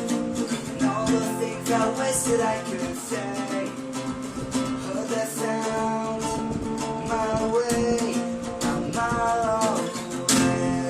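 Guitar strummed in a punk-rock song, played steadily with repeated chords.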